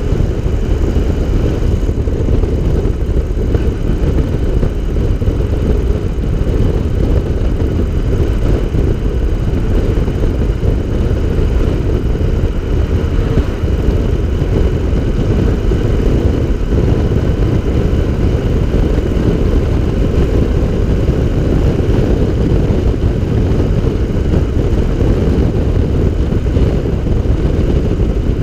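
Air-cooled twin-cylinder engine of an open three-wheeler running steadily at cruising speed, mixed with heavy wind and road rush. The sound holds level with no gear changes or revving.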